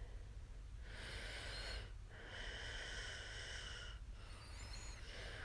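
A woman breathing close to the microphone: three slow, noisy breaths, the middle one the longest, over a steady low hum.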